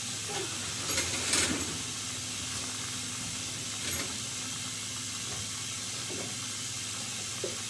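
Steady hiss, with a brief rustling clatter of things being handled about a second in and a single sharp click a few seconds later.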